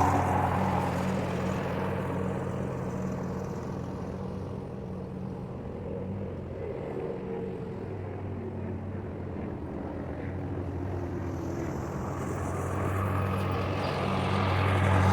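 An engine running steadily at a low, even speed, growing a little louder near the end.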